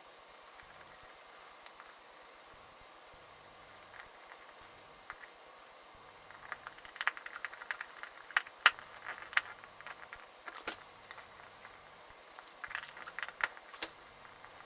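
Small clicks and taps of a screwdriver and wire connectors being worked at the brush terminals on a Henry Micro vacuum cleaner's plastic motor housing. Faint handling at first, then a run of sharp, irregular clicks from about six seconds in.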